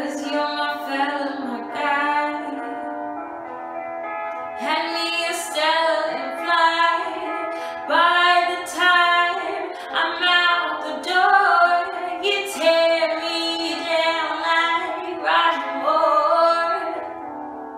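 A woman singing solo, phrase after phrase, with some notes held and bending in pitch; the singing grows louder about five seconds in.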